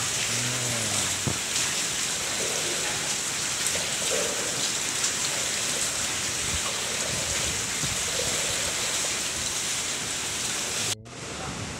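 Tap water running steadily at a mosque ablution station and splashing onto tile and the steel drain channel below as a man washes for wudu: a continuous hiss that cuts off abruptly near the end.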